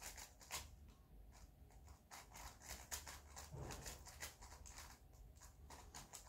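Faint, quick clicking of a puzzle cube's layers being turned over and over while it is scrambled.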